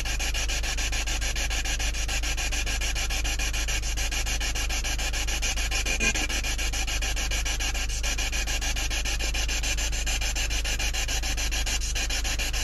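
Steady static hiss with a fast, even flutter: radio interference picked up on the recording. One faint knock about six seconds in.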